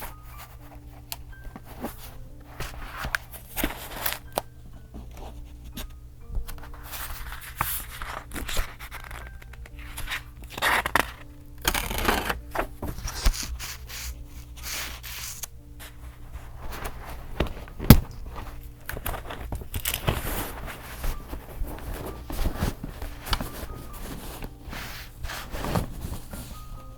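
Paper handled for vintage journaling: crinkling, tearing and scraping in short irregular bursts, with one sharp tap about two-thirds of the way through. Soft music runs underneath.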